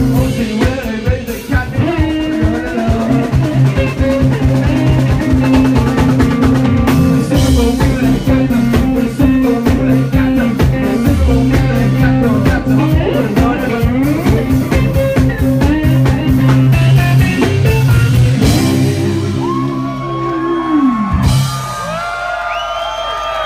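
Live blues-rock band (electric guitar, bass and drum kit) playing loud. About three quarters of the way in, the drums drop out under a held chord, and a guitar note bends down as the song ends. Near the end the crowd cheers and whoops.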